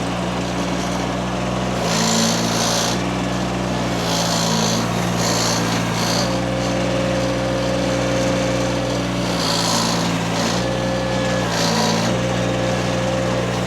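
Mini skid steer's small engine running steadily, its pitch sagging briefly several times as the machine drives and works its hydraulics, with short bursts of hiss at the same moments.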